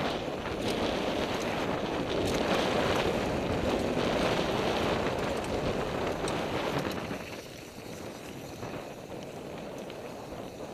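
Wind buffeting the microphone over the rolling rumble of an NS Bikes Soda mountain bike's tyres on a fast dirt trail descent, with scattered clicks and rattles from the bike. The noise drops off about seven seconds in.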